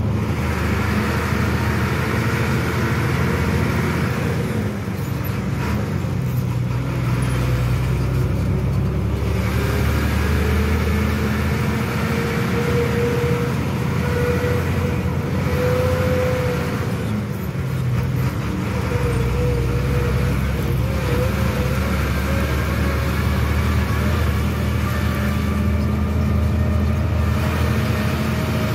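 Truck engine running steadily at low road speed, heard from inside the cab, with a thin whine that wavers in pitch and rises near the end.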